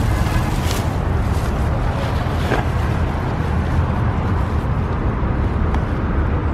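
A steady low outdoor rumble, with a brief rustle of a plastic bag being pulled about a second in.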